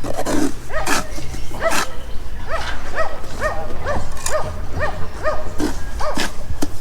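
A dog barking repeatedly in short, rising-and-falling yelps, about two a second, with a few sharp knocks among them.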